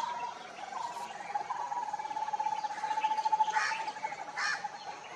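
Birds chirping in the trees over a steady, fast-pulsing trill that lasts a few seconds. Two short, sharp calls stand out near the end.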